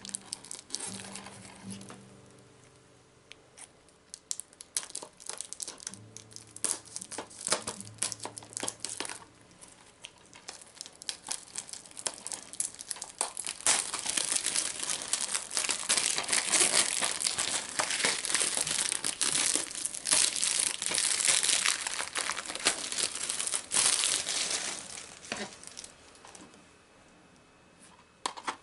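Plastic shrink-wrap being torn and peeled off a DVD case by hand: scattered crackles and tearing at first, then a long stretch of dense crinkling in the middle that fades out near the end.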